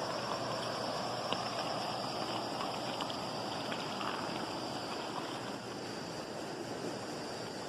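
River water flowing steadily over rocks, a continuous rushing noise.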